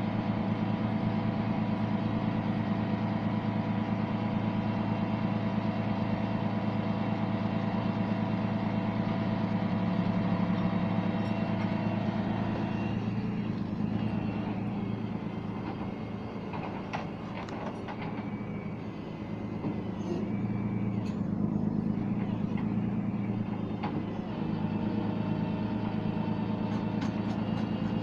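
Large truck engine running steadily, with a few short clicks and knocks over its hum in the second half.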